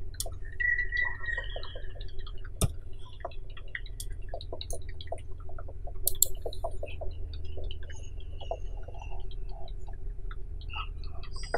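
Irregular clicks and taps from a computer mouse and keyboard, with one sharper click about two and a half seconds in, over a steady low hum.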